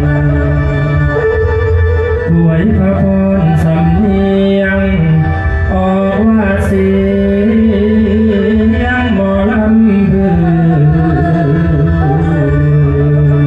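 Music with a singing voice over a steady low accompaniment.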